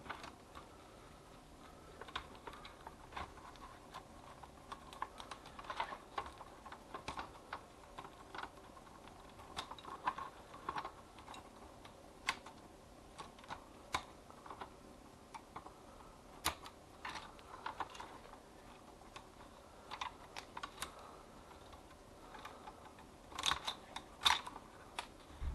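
Irregular small clicks, taps and scrapes of a screwdriver and fingers working on the plastic and metal parts of a Sharp AR-M700 copier fuser unit, with a louder run of clicks near the end.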